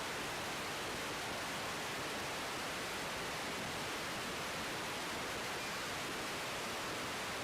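Steady, even hiss that holds one level throughout, with no tones or distinct events in it.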